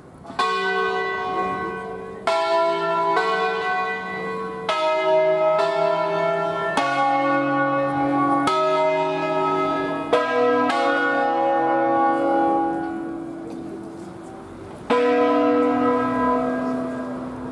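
Five tuned church bells of an Ambrosian-system peal in B, cast by Barigozzi, rung by rope with the bells swinging on their wheels. About ten single strokes come at uneven spacing and shifting pitches, playing a melodic sequence in which each note rings on into the next. There is a pause of about two seconds before a last loud stroke near the end.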